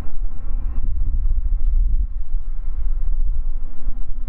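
Low rumble of a Boeing 787-9 airliner's jet engines as the jet rolls away down the runway.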